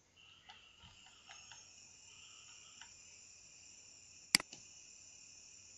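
Faint steady high-pitched insect chirring, like crickets, with a few light ticks and one sharp click a little past four seconds in.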